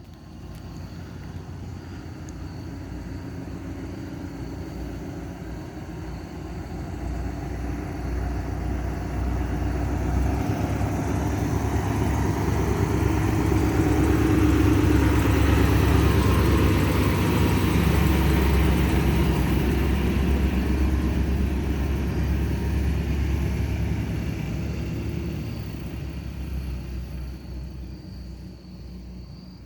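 A motor vehicle running with a low rumble that grows louder to a peak about halfway through, then fades away again.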